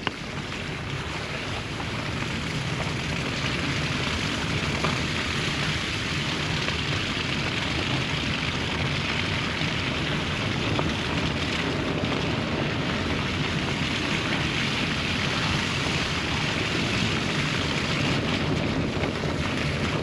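Steady road, tyre and wind noise of a Honda Civic driving along a snowy road, heard from inside the car, growing louder over the first couple of seconds and then holding even.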